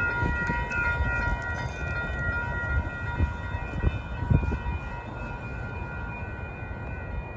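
Freight train rolling past at speed: a steady low rumble with a few heavy wheel thumps midway. Over it runs a steady high ringing tone of several notes together, which stops near the end.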